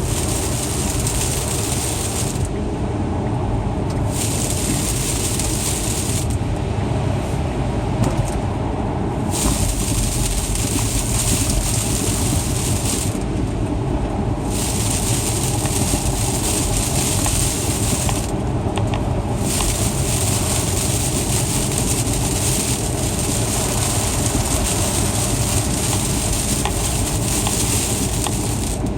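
Steady in-cabin road noise of a car driving on snowy, icy streets: a continuous low rumble of engine and tyres with a hiss over it.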